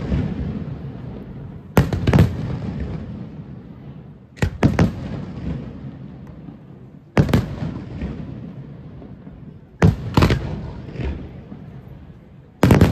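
Aerial firework shells bursting overhead in a steady sequence: five sharp bangs, about one every two and a half seconds, two of them doubled, each trailing off in a rolling echo.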